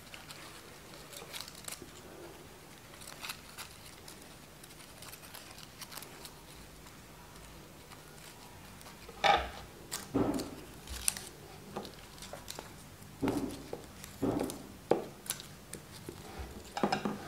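Stiff paper petals rustling and crinkling as they are handled and pressed together with glue: faint at first, then a string of short sharp rustles and clicks from about nine seconds in.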